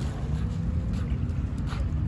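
Steady low hum of a distant motor engine, over a rumble of wind on the microphone.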